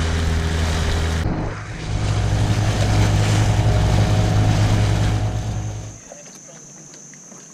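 Small boat's outboard motor running at speed with water rushing past, broken by an edit about a second in. Near the end it gives way to much quieter surroundings with a faint, steady high-pitched tone.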